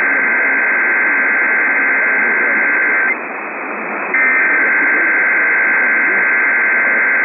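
Emergency Alert System SAME header: long bursts of shrill, buzzing digital data tones received over radio with steady static hiss underneath. One burst ends about three seconds in, and after a one-second pause another begins and keeps going.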